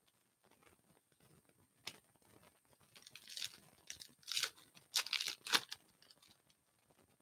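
Foil wrapper of an Upper Deck hockey card pack being torn open and crinkled. A run of sharp, crackly tearing starts about three seconds in and stops shortly before the end, after a single light tap about two seconds in.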